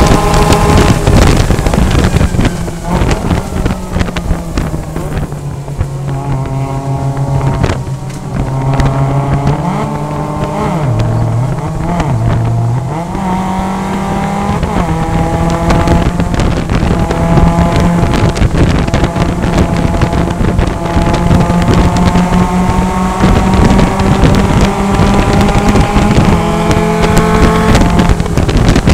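In-cabin sound of a Mazda MX-5 Cup race car's four-cylinder engine at racing revs on a wet track. The engine note drops a few seconds in, then climbs in steps with gear changes. Wind and tyre spray make a steady rushing noise underneath.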